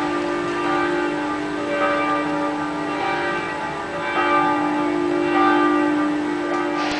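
Church bells pealing: several bells ringing together, their tones swelling and fading in waves.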